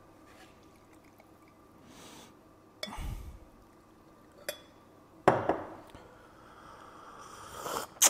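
Glassware clinking and knocking as it is handled and set down, with liquid poured into a glass near the end.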